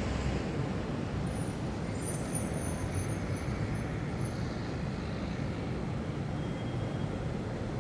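City traffic ambience at dawn: a steady rumble of distant road traffic, with faint high chirps from about a second and a half in for a few seconds.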